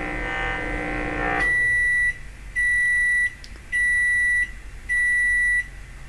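An electrosmog meter's speaker buzzing as it picks up microwaves leaking from a running microwave oven. The buzz cuts off about one and a half seconds in as the oven stops, and the oven then gives four long, even end-of-cycle beeps about a second apart.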